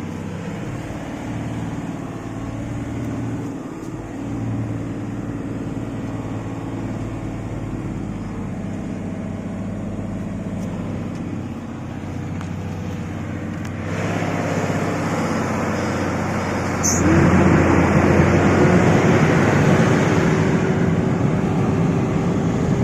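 IVECO 420 heavy truck's diesel engine pulling under load up a steep sandy slope. It runs steadily, gets louder about 14 seconds in, then revs up sharply about 17 seconds in, its pitch climbing slowly as it works hard.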